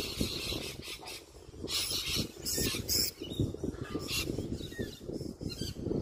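Birds squawking in short, harsh calls, about four in a few seconds, over a low rumble on the microphone.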